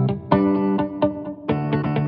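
Background music: plucked guitar notes, struck several times a second and each fading away.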